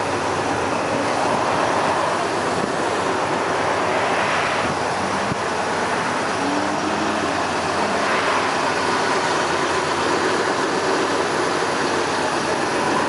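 Steady road traffic noise, with vehicles passing about four and eight seconds in.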